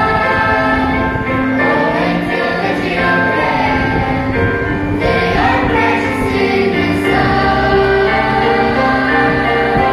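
Children's choir of boys and girls singing a hymn together over instrumental accompaniment, in long held notes that change pitch every second or so.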